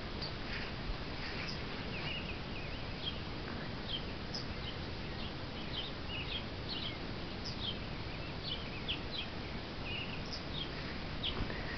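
Birds chirping: short, high, quick calls scattered irregularly throughout, over a steady background hiss of outdoor noise.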